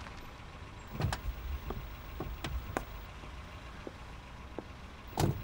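Car door sounds over a low rumble: a thud about a second in, a handful of clicks and knocks, then a door shutting with a thud near the end.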